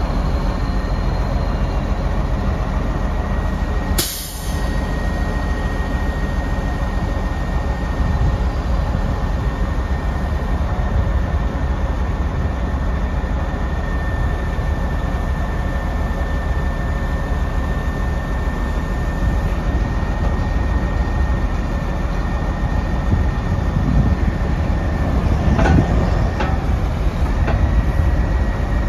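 Cummins ISC diesel engine of a grapple truck running steadily to power the hydraulic grapple boom as it swings and lowers, with a steady high whine over the low engine rumble. There is a sharp click about four seconds in and a few knocks near the end.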